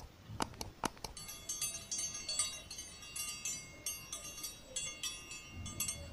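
A few sharp clicks, then from about a second in a quick, continuous tinkling of small bell-like chimes, like a notification bell sound effect.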